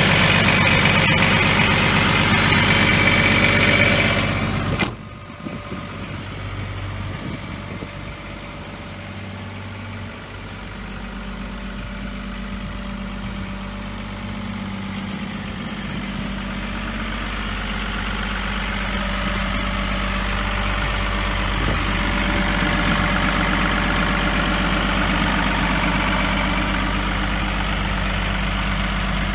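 Hyundai Robex 235 LCR-9 excavator's diesel engine idling steadily. It is loud and close for the first few seconds, drops suddenly to a quieter, more distant hum about five seconds in, then slowly grows louder again.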